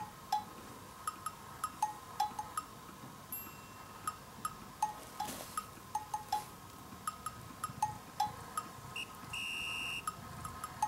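Light, playful background music of short plinking bell-like notes, with a brief high held tone about nine seconds in.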